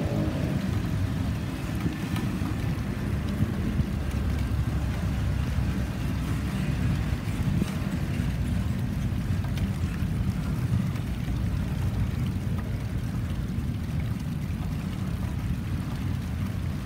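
Double-stack intermodal freight cars rolling past: a steady low rumble of steel wheels on rail, with a few faint clicks.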